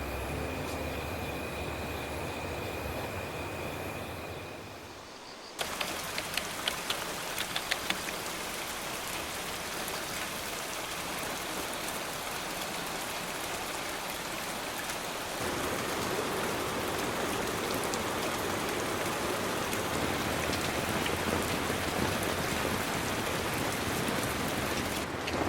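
Steady rain falling, with a few sharp drip taps soon after it starts, growing heavier about fifteen seconds in. Before the rain, a steady hum fades out over the first five seconds.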